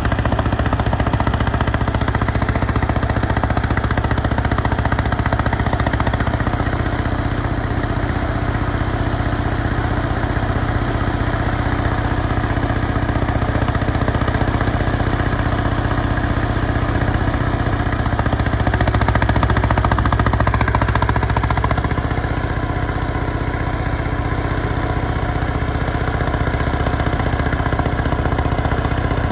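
Detroit Diesel 6V92TA two-stroke V6 diesel engine of an FTF logging truck running steadily, growing briefly louder about two-thirds of the way through.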